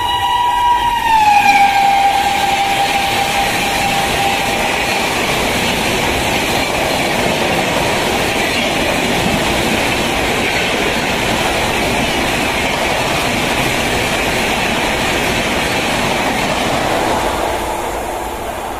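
An electric locomotive's horn held on one tone, dropping in pitch about a second in as the locomotive speeds past. This is followed by the loud, steady rush of LHB passenger coaches going by at high speed, fading near the end.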